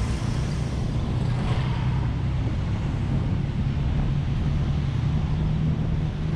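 Engine of the vehicle carrying the camera running at steady cruising speed, a low even hum with road noise and wind buffeting the microphone.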